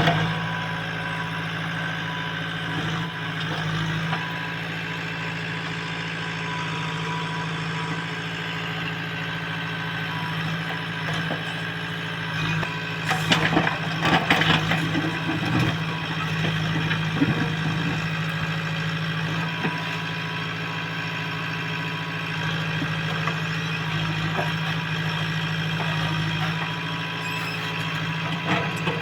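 JCB construction machine's diesel engine running steadily, with a burst of sharp knocks about halfway through.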